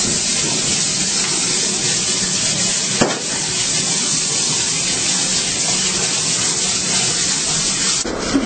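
Hair dryer switched on and blowing: a steady loud hiss of air over a low motor hum, with a brief click about three seconds in, cut off shortly before the end.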